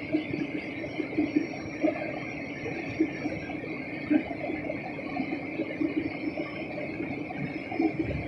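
Airliner cabin noise on descent: a steady drone of the engines and rushing air with a faint high whine, broken by small irregular knocks and rattles.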